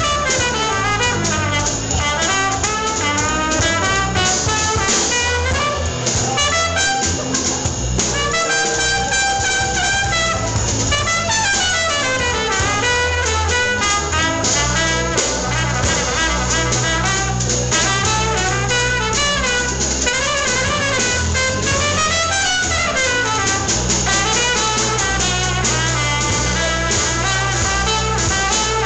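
Live jazz: a trumpet plays a busy, winding melody over a drum kit keeping time, with no break.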